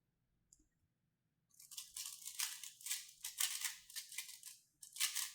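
A 3x3 speed cube being turned rapidly during a speedsolve: quick clicking, rattling flurries of layer turns, starting about a second and a half in.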